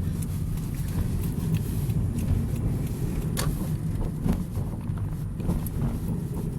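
Steady low rumble of a car driving, heard from inside the cabin, with a few faint ticks and clicks.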